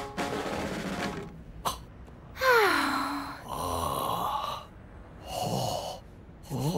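A tambourine's jingles rattle briefly for about the first second. Then a man's wordless vocal sounds follow: a loud falling cry about two and a half seconds in, then a few shorter voice sounds.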